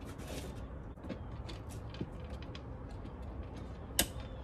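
Small metal clicks and rattles as a license plate is fitted onto a STO N SHO quick-release front plate bracket, with one sharp click about four seconds in as it locks into place.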